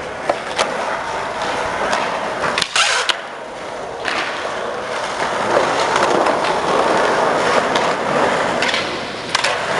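Skateboard wheels rolling over skatepark concrete, with sharp clacks of the board and trucks hitting the ground: a cluster of them about three seconds in and again near the end.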